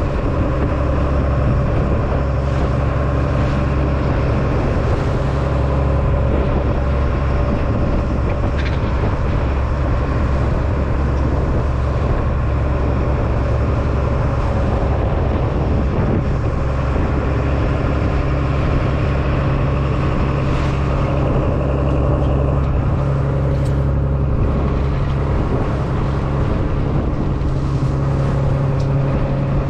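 Fishing boat's engine running steadily: a constant low drone that holds the same pitch.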